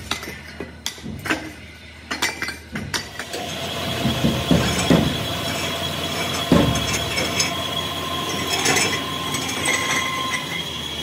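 Quick metallic clinks of a hammer striking cast-iron cylinder sleeve castings. About three seconds in, a cabinet blasting machine takes over, running steadily with a high whine and a rattle of parts tumbling inside.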